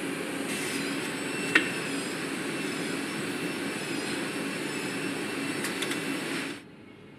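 Steady factory-floor machinery noise with a low hum, broken by one sharp click about a second and a half in; the noise drops away abruptly near the end.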